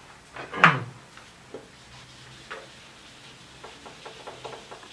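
A whiteboard being wiped with a hand-held duster. There is a loud bump about half a second in, then a couple of sharp clicks, and then a run of light rubbing and ticking strokes near the end.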